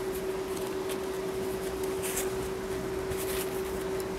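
Cotton fabric rustling softly a few times as hands gather and even out an elasticated waistband, over a steady hum.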